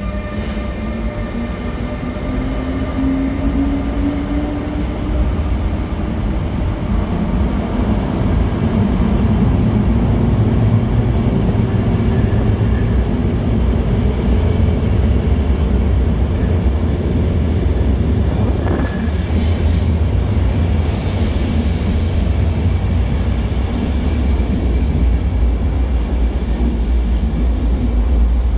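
ÖBB double-deck passenger train approaching through a tunnel and running into an underground station. A low rumble builds as it nears, with a rising whine in the first few seconds and a brief squeal about nineteen seconds in. The coaches are running close past by the end.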